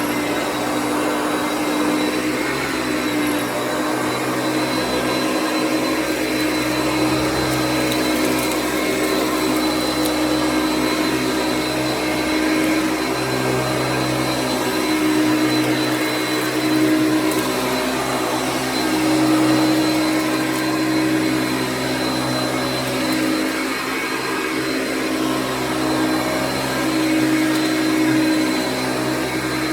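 Hoover Concept One upright vacuum cleaner running steadily: a motor hum with a thin, high, steady whine above it, rising and falling slightly in level now and then.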